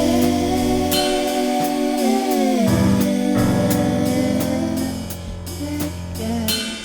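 Homemade beat with bass and drums under a long held note that slides up at the start and is held for nearly three seconds.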